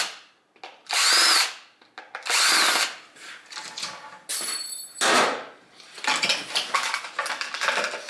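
Cordless drill-driver unscrewing the screws on the back of a Danfoss compressor's plastic electronic control unit: two short runs, each rising and falling in pitch. After them come rustling and scraping as the plastic housing is handled and its cover comes off.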